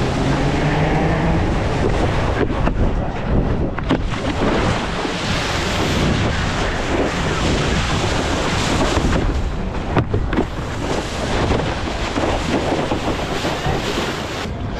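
Wind buffeting a head-mounted action-camera microphone over the steady rush and hiss of a wakeboard cutting across water, with a few sharp knocks about two and a half, four and ten seconds in.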